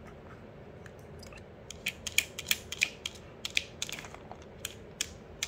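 A clear plastic jar of dog treats being nosed and pushed along the floor by a Pomeranian: a run of irregular sharp plastic clicks and knocks, starting a little under two seconds in.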